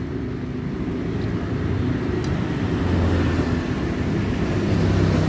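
A nearby motor vehicle's engine running, a low steady hum that swells about three seconds in, as street traffic goes by.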